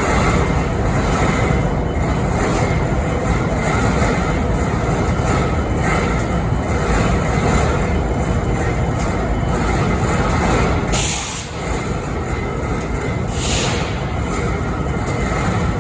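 BNSF 5910 diesel locomotive idling: a steady, dense engine rumble with faint steady tones over it. This is the strange noise the recording was made to capture. Two short hisses come about eleven and thirteen and a half seconds in.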